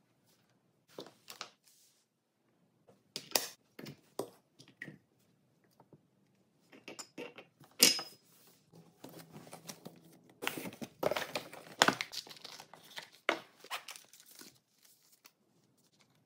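Hands unpacking coffee gear: scattered clicks and knocks of parts being handled and set down, the sharpest about eight seconds in, then a stretch of crinkling, rustling packaging.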